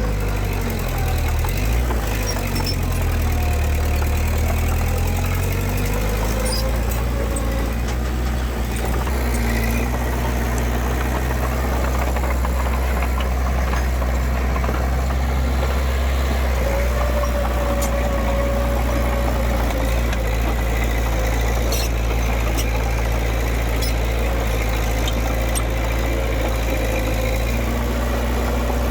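Heavy diesel engine of earth-moving machinery running steadily, its engine speed shifting during the first couple of seconds and then holding even.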